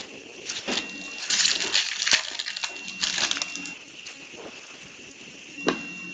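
Foil wrapper of a trading card pack crinkling and tearing as it is ripped open by hand, in a few crackly bursts, with a sharp click about two seconds in.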